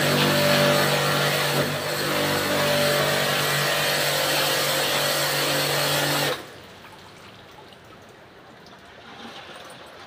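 Electric pressure washer pump running with a steady motor hum and the hiss of its water jet spraying an air conditioner unit during a wash. It cuts off suddenly about six seconds in.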